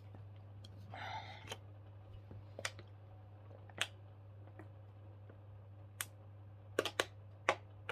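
Scattered single clicks of computer keyboard keys, a few of them close together near the end, over a low steady hum. A short rustle comes about a second in.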